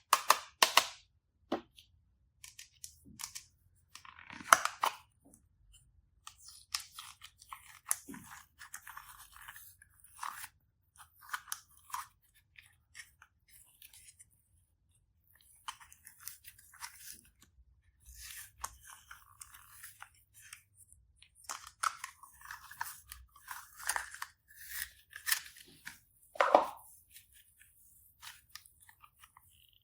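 Slime being squeezed and worked by hand, giving irregular crunchy crackles and clicks with a few louder squishes.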